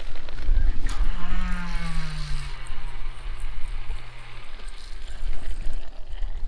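A long overhead cast with a heavy sturgeon rod: a swish about a second in, then the conventional reel's spool whirring as the line pays out, its pitch falling as the spool slows over about three and a half seconds. A steady low wind rumble on the microphone runs underneath.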